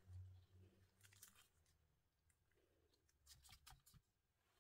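Near silence, with faint rustling and a few light clicks as a gloved hand handles ripe bananas on a plastic mat.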